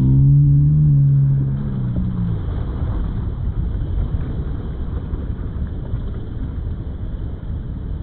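Rushing whitewater as an inflatable kayak runs down a shallow waterfall: a loud, even, low rumbling noise of turbulent water. A held low-pitched tone sounds over it for the first two seconds or so.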